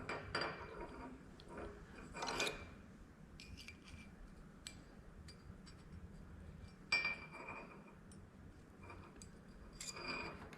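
Faint clinks and scrapes of small steel parts of an old Snap-on ratchet wrench being handled and fitted together during reassembly, with slightly louder knocks about two seconds in, about seven seconds in and near the end.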